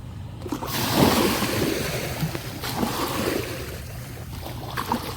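Ocean waves breaking on the shore: a wash of surf rises about a second in and slowly ebbs away over the following seconds.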